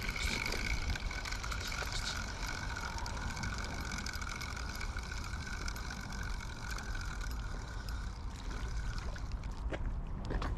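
Spinning reel being cranked to wind in the line, a steady whine from its gears that stops about eight seconds in, followed by a few light clicks near the end.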